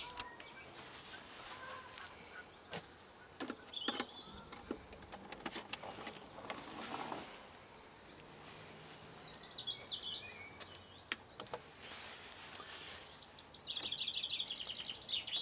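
Scattered light clicks and taps of small metal parts being handled on a Garrard 3000 turntable deck. Birds chirp faintly in the background, about ten seconds in and again near the end.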